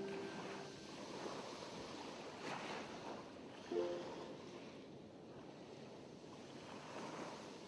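A faint rushing noise that swells and eases like surf, with one short plucked note about four seconds in.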